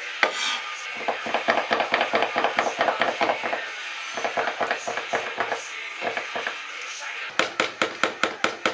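Chef's knife chopping cooked partridge meat on a wooden chopping board: runs of quick knocks, several a second, broken by short pauses.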